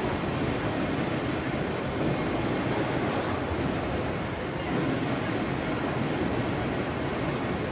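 Wind buffeting the microphone: a steady rushing noise with no clear events.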